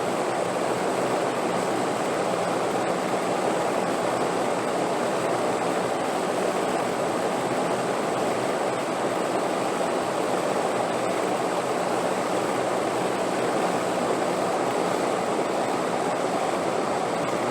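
Steady wind, an even rushing noise with no gusts or breaks, with a faint high steady tone above it.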